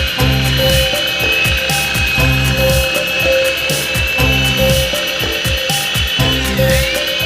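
Small electric motor of a toy RC helicopter whining at a steady high pitch, dipping in pitch near the end and quickly coming back up, over background music with a steady beat.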